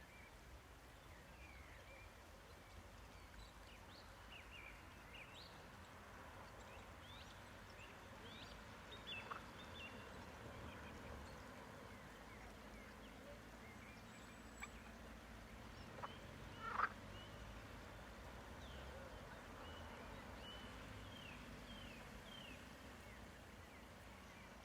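Faint bird chirps scattered throughout, short quick calls, with one louder short call about seventeen seconds in, over a low steady background hum.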